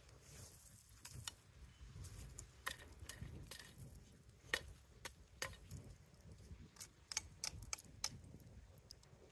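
Faint clinks and scrapes of lumps of melted aluminum and burnt scrap metal knocking together as they are picked out of a pile of ashes, about a dozen sharp clicks spread irregularly through.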